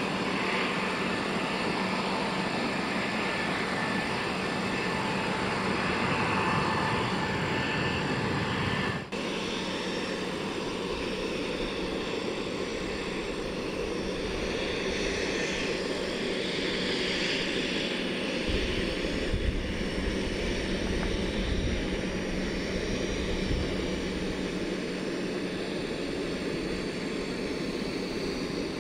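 Airbus A320neo's turbofan engines running as it touches down on the runway. About nine seconds in, a cut to the steady jet engine noise of an Embraer ERJ-145 regional jet taxiing.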